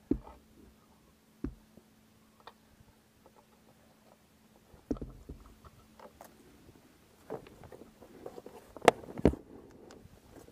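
Metal roller chain and hand tools being worked at a motorcycle sprocket: scattered sharp clicks and clanks of chain links being moved and fitted, with two loud knocks in quick succession near the end.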